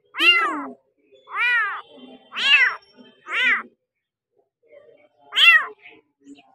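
A young kitten meowing five times, each meow high and rising then falling in pitch. Four come in quick succession, and the fifth follows after a pause of about a second and a half.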